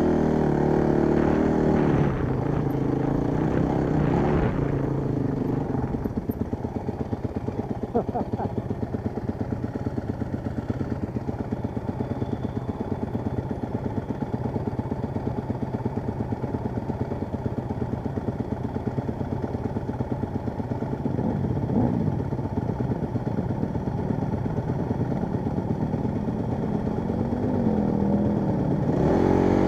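Honda CRF dirt bike's single-cylinder four-stroke engine revving briefly in the first few seconds, then running at a steady low idle, with revs rising again near the end.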